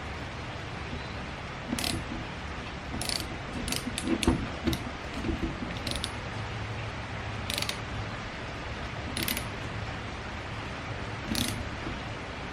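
Small metal clicks and scrapes of a hand tool tightening set screws on a transfer-case shifter extension, coming irregularly every second or so.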